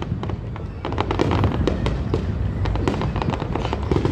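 Fireworks display going off: a dense, rapid run of bangs and crackles over a continuous low rumble.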